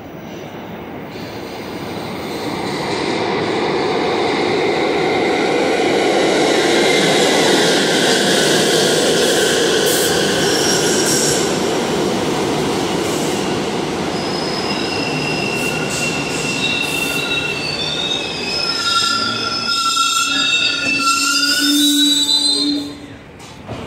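Rail transit train passing close by: its running noise builds over the first few seconds, then high-pitched wheel squeal sets in about halfway through, with several shrill tones held together. The sound falls away sharply just before the end.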